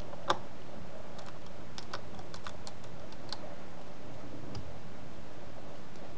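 Light metal and plastic clicks and ticks from a precision screwdriver working the small screws at an HP G62 laptop's screen hinge: one sharper click just after the start, a quick scatter of small ticks over the next few seconds, and one more a little later, over a steady background hiss.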